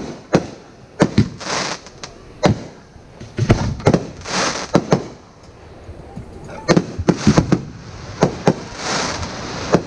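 Aerial fireworks going off: a rapid, irregular series of sharp bangs, with a few short bursts of hissing crackle among them. There is a brief lull about halfway through before the bangs pick up again.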